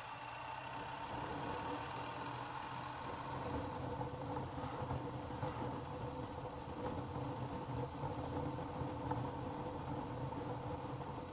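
Ural sidecar motorcycle's air-cooled flat-twin engine running steadily under load at road speed, against a headwind, with wind noise over it.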